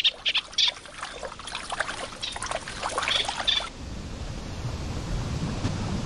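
Water splashing and dribbling in quick, irregular spatters, then an abrupt change a little over halfway through to a steady low rumble.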